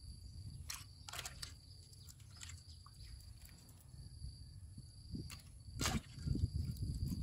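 Metal mesh strainer clinking against a steel pot as rice noodles are scooped out of water: a handful of light, sharp clinks spread through, the clearest about a second in and near six seconds. A steady high insect drone runs behind.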